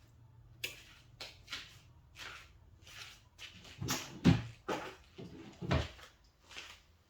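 Hardware being handled on a bench: a quick, irregular series of clicks, scrapes and knocks, with two heavier thumps about four and six seconds in.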